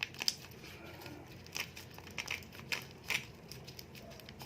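A packet sachet being crinkled and pulled at by hand in an attempt to tear it open, with irregular sharp crackles as the packet resists tearing.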